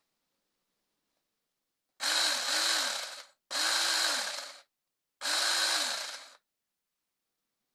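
Handheld DeMak electric power tool run in three short bursts of about a second each, the motor speeding up and winding down each time; the first burst is two quick trigger pulls.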